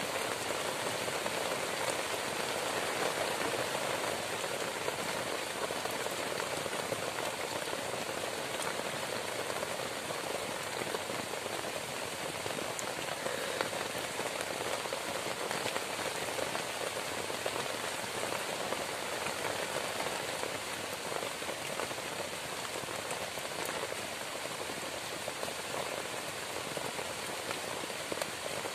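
Heavy rain falling steadily on a shelter roofed with grass and leaves, a dense even hiss with scattered drops ticking close by.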